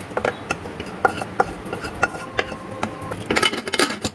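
A metal spatula scraping and clinking against the rim of a pan as dal is scraped out into an aluminium pressure cooker. Near the end comes a louder run of metal clatters as the cooker's lid is fitted.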